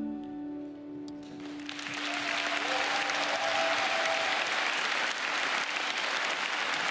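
The last chord of the song rings on and fades; about a second and a half in, audience applause breaks out and continues at full strength.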